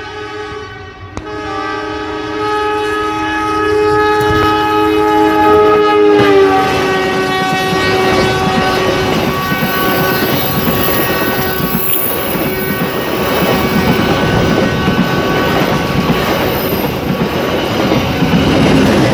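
A passenger train sounds a long multi-tone horn that drops in pitch about six seconds in as it comes past. The horn fades out, leaving the loud clatter of the carriages' wheels running over the rail joints close by.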